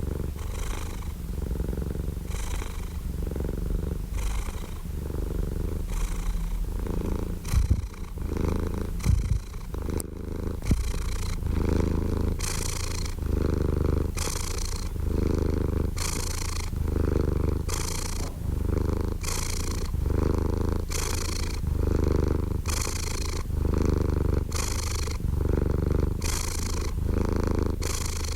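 Domestic cat purring close up: a steady low rumble that swells and eases in an even rhythm, a little more than once a second, with each breath in and out. A few short bumps break in around the middle.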